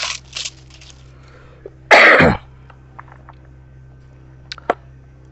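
A single short cough about two seconds in, from a man with a head cold. Brief plastic-film rustling at the start and two sharp clicks near the end as the plastic tool case is handled.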